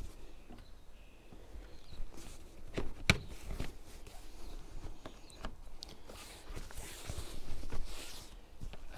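Scattered clicks and light knocks with fabric rustling as a Lotus Elise's soft-top hood is handled and pressed into place over its roof frame. The sharpest click comes about three seconds in, and the rustling is strongest near the end.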